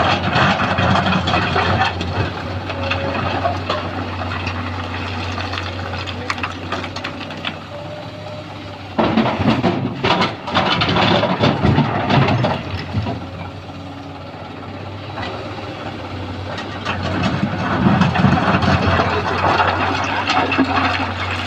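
Sany SY215C hydraulic excavator's diesel engine running steadily, growing louder and rougher in stretches about nine to twelve seconds in and again near the end as it works under load.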